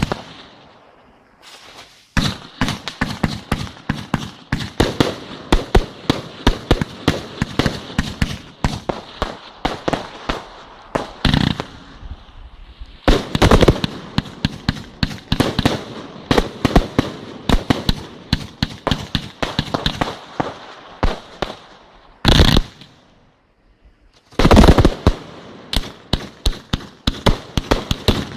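Fireworks display: a rapid barrage of sharp bangs and cracks, many a second. It goes briefly quiet about two seconds in and again for about two seconds late on, before the bangs resume.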